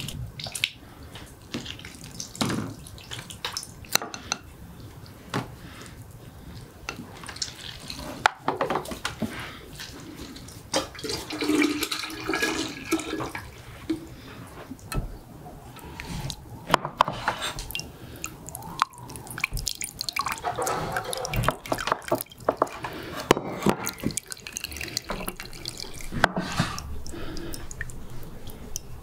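Oranges being juiced by hand: fruit twisted on a hand citrus reamer and squeezed, with juice dripping and pouring into a jug and small clicks and knocks of the juicer. The sound is irregular, with no steady tone.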